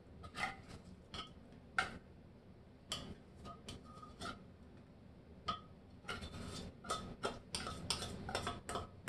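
Metal spoon scraping and tapping inside an opened tuna can, digging the tuna out: irregular clinks and scrapes, coming thicker and faster in the last few seconds.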